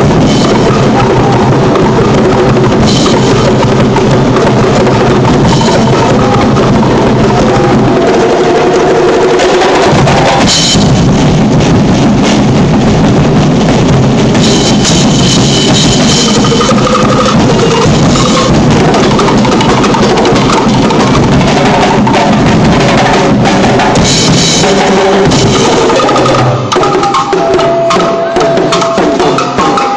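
Loud festival percussion band drumming continuously to accompany a street-dance performance, with bass drums and sharper wood and snare strokes.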